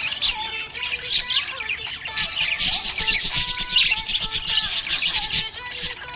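Small pet parrots chirping and twittering rapidly, with many short overlapping calls, busiest in the middle.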